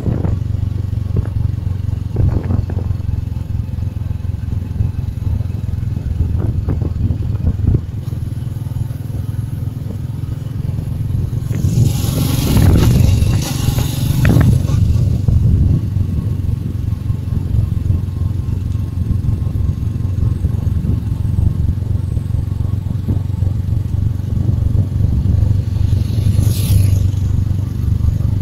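Motorcycle engine running steadily at road speed, a low rumble with wind and road noise over the microphone. About twelve seconds in, a louder rush of noise swells for a few seconds, and a short hiss comes near the end.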